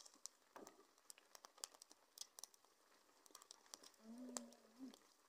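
Faint, irregular crackling and snapping of a small wood fire burning under a cooking pan, with twigs being pushed into it. A short low-pitched call sounds about four seconds in.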